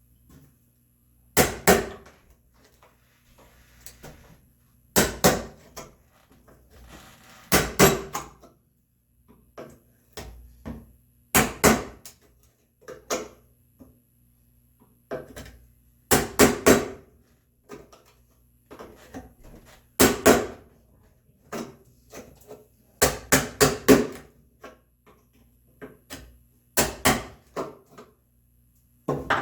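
Mallet striking a chisel, chopping a mortise in red oak: groups of two to four sharp blows every few seconds, with fainter knocks in between.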